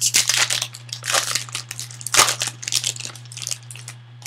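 Foil wrapper of a trading-card pack crinkling and crackling in a string of irregular rustles as it is torn open and crumpled by hand, loudest about two seconds in. A steady low hum runs underneath.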